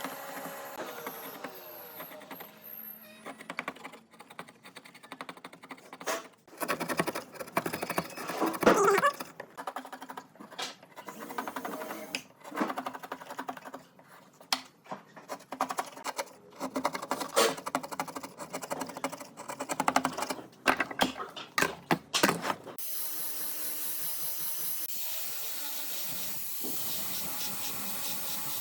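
Irregular tapping, clicking and knocking of hand work on wood, then a steady hiss starting abruptly near the end.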